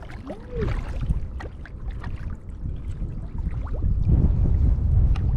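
Kayak paddle splashing and water trickling and dripping as the kayak is paddled, with wind rumbling on the microphone.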